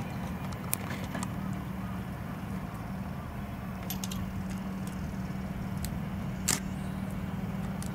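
Steady low hum and rumble of a running vehicle, with a few sharp clicks, the loudest about six and a half seconds in.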